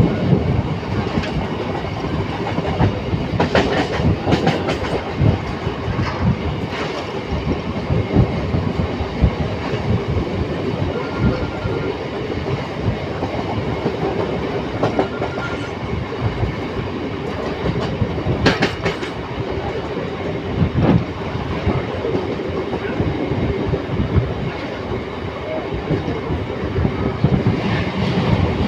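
Train running at steady speed, heard from aboard: a continuous rumble of wheels on rails, with irregular clacks over rail joints and a few sharper clacks.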